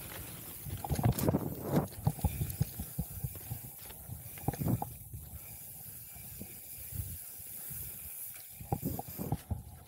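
Mountain bike rolling down a dirt trail: tyres on the dirt with a steady hiss, and irregular knocks and rattles from the bike over bumps, heavier in clusters about a second in, near the middle and near the end.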